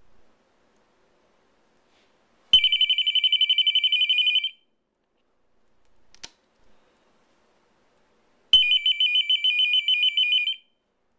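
Krown K-RA05 amplified telephone ringer sounding two rings about four seconds apart. Each ring is roughly two seconds of a loud, rapid electronic warble between two high tones, the on-off cadence of an incoming call on the phone line.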